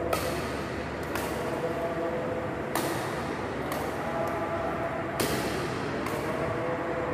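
Badminton rackets striking a shuttlecock in a rally: about five sharp cracks, one every second or so, each with a short echo off the big hall, over faint held tones.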